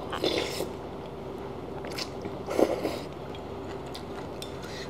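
A person slurping a mouthful of soup from a cup in the first half-second, then quiet chewing with a couple of small mouth sounds.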